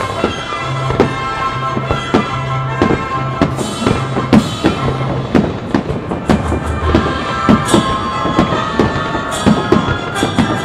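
Aerial fireworks going off in an irregular run of sharp bangs, several a second, over music.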